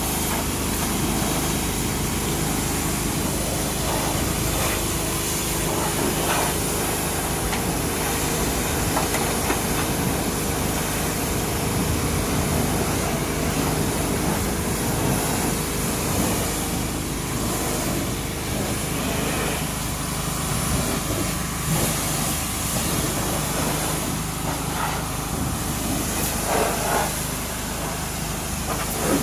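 Pressure washer running: a steady hiss of water spray over the even hum of its motor.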